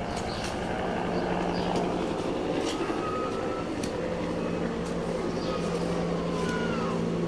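A steady mechanical hum from a running engine, with scattered sharp clicks and a few short high chirps.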